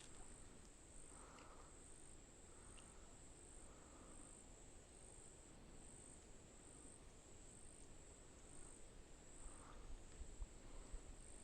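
Faint insect trill, high-pitched and pulsing at an even rhythm under near-silent woodland quiet, with a few faint low rustles near the end.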